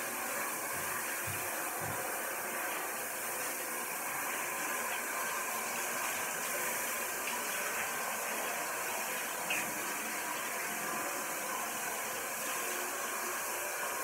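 Water from a handheld shower head spraying steadily.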